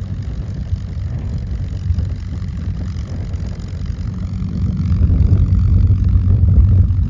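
P-51 Mustang's V-12 piston engine droning in flight, a deep steady note that grows louder about five seconds in as the fighter comes closer.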